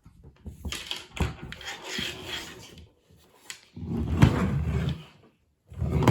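Plastic Polly Pocket compact toy being handled, with small clicks and rustling, then louder knocking and rubbing from about four seconds in.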